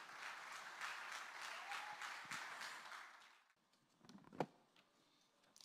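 Audience applauding, faint, dying away after about three seconds. Then near silence with one short click.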